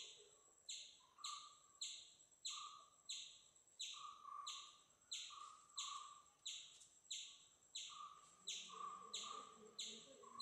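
Faint, very regular chirping, about one and a half chirps a second, each sharp at the start and quickly fading, with short whistled notes in between.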